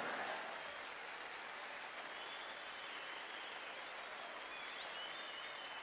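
Audience applauding in a large hall, a steady even clatter.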